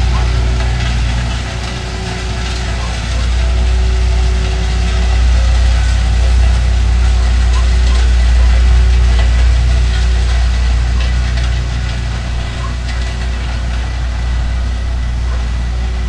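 Ingersoll Rand double-drum vibratory road roller running, a steady low engine drone that swells and eases a little as it moves.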